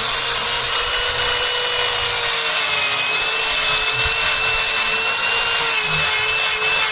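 Electric wood router running steadily at high speed, a constant whine over dense cutting hiss.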